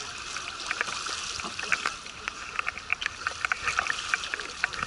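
Small splashes and lapping of water in the swimming lanes: an irregular run of short splashy ticks over a steady hiss.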